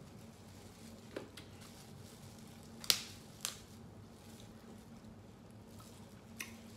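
Crab legs being cracked and pulled apart by gloved hands: a few sharp shell snaps, the loudest about three seconds in, over a low steady hum.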